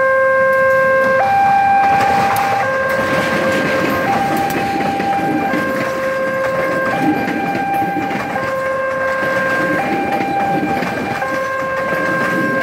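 Passenger train passing close by, its diesel locomotive and then its carriages rumbling and clattering over the rails. Over it sounds a loud electronic two-tone warning signal that switches between a lower and a higher chord about every one and a half seconds.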